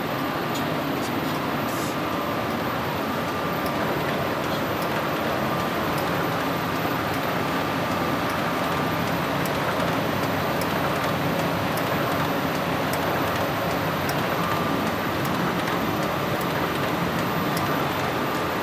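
2003 Komori Lithrone L-826P sheetfed offset printing press running: a steady mechanical hum and rumble, with faint ticks about once a second and a thin whine that comes and goes.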